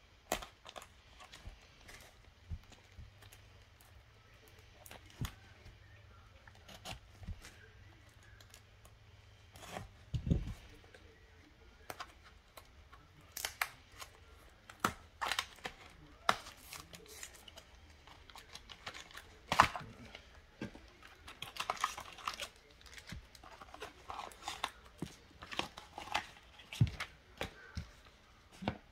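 Plastic shrink-wrap being torn and crinkled, and a cardboard trading-card deck box opened by hand, in irregular crackles and clicks. There is a dull knock about ten seconds in.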